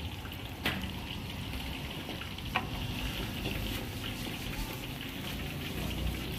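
Steady sizzling hiss of cooking at a street-food stall. Two short sharp clicks, about a second in and again past two seconds, come from foil and plastic soup packets being handled.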